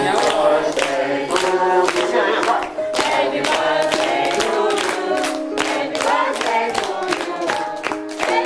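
A group of people singing together, with a steady, sharp beat running under the voices.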